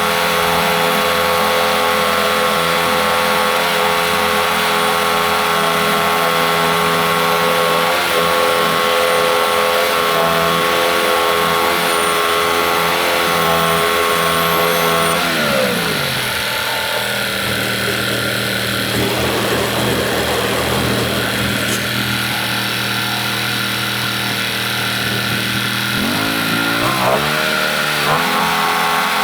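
Norwood MX34 portable bandsaw mill's engine running steadily at high speed, dropping to idle about halfway through, then revving back up in steps near the end.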